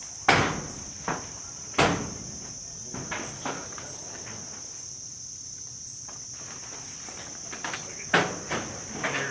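A steady high insect drone runs throughout. Over it come sharp knocks from the metal wall sheet being handled against the shed framing: two loud ones about a second and a half apart near the start, and a few lighter ones near the end.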